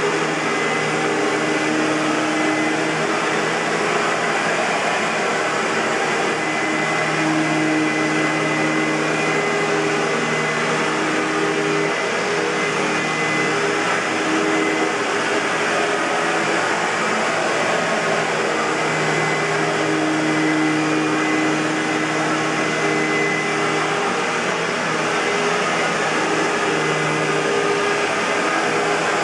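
Hoover WindTunnel bagless upright vacuum cleaner running steadily: an even rush of air with a low motor hum that swells and fades every few seconds.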